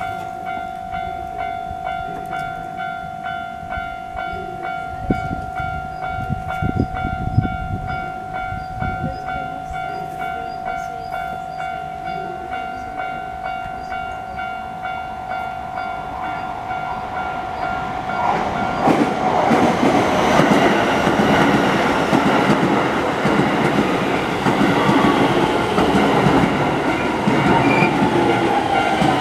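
A Japanese level-crossing warning bell rings in a steady, rapid, even rhythm. About 18 seconds in, a Keisei Main Line train passes over the crossing, and its rail and running noise grows loud and covers the bell.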